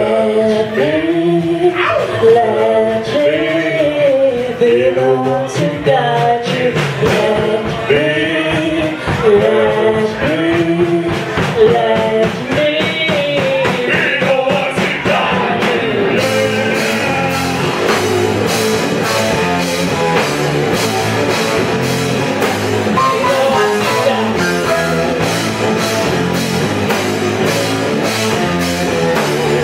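A live doom metal band: sung vocals over distorted electric guitars and drums for about the first twelve seconds. The band then carries on without the voice, the drummer keeping a steady beat on the cymbals.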